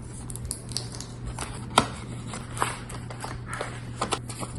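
Handling noises: scattered clicks, taps and crackles, with one sharp tap a little under two seconds in, over a steady low hum.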